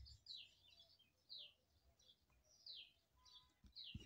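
A small bird chirping faintly in the background: repeated short chirps, each a quick falling note, roughly one or two a second.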